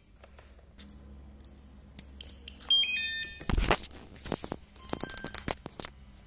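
Electronic beep tones from RC radio transmitter gear being powered up and set: a quick run of stepped beeps about three seconds in, a knock from handling just after, then a rapid string of clicks and short beeps near the end.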